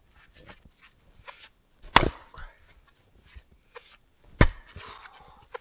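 Axe striking wood: two heavy blows about two and a half seconds apart, with lighter knocks and crunches between them.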